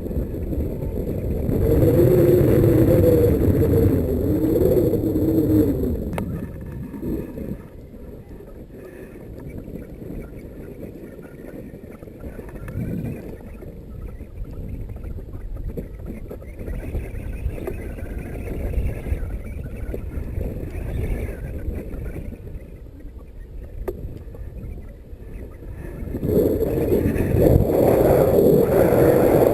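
Wind rumbling on the microphone in flight. It swells and fades in gusts, strongest in the first few seconds and again near the end.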